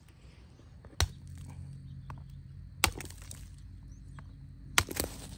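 Sharp knocks of a metal tool striking a lightweight black, charcoal-like chunk resting on a mossy stone, which the finder takes for petrified or burnt wood. Two single strikes about two seconds apart, then a quick double strike near the end.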